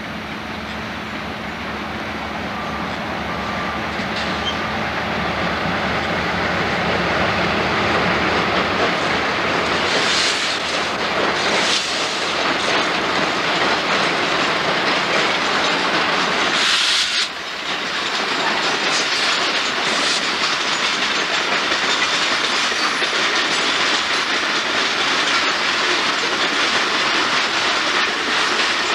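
Two GE B23-7R "Super 7" diesel locomotives with 12-cylinder GE FDL engines running as they draw nearer, growing louder, then a train of coal hopper cars rolling past with wheels clicking over the rail joints. A few short bursts of hiss come about ten, twelve and seventeen seconds in.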